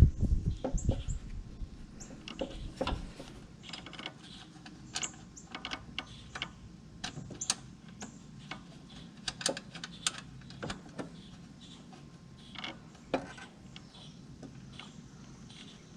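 Irregular light clicks and knocks of hand tools and metal parts being worked on a lawn tractor's front steering, where the tie rod is being refitted.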